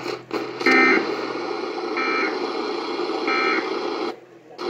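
Emergency Alert System SAME header: three short, evenly spaced bursts of digital data tones, about a second apart, heard over a radio with a steady hiss behind them. These are the encoded alert data that open a required monthly test.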